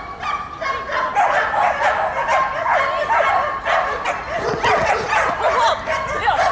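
A dog barking and yipping over and over in quick succession, with high, curving whining calls.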